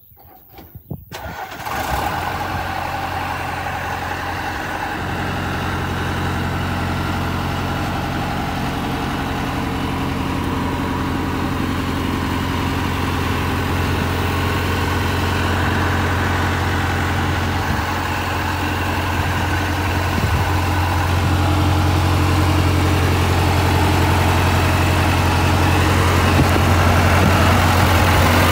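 John Deere 6000 Hi-Cycle sprayer's engine starting about two seconds in, then idling steadily and getting slowly louder.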